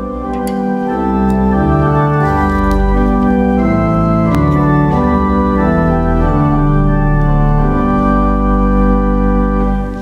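Organ playing slow, sustained chords that change every second or so, swelling in over the first second: an introduction to the music of a televised Mass.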